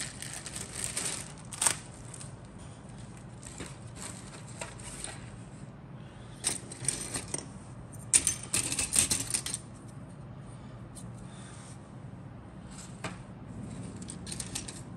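Plastic model-kit parts on their sprues clicking and clattering against each other and the cutting mat as they are handled. The sound comes in irregular bursts, busiest about a second or two in and again around eight to nine seconds.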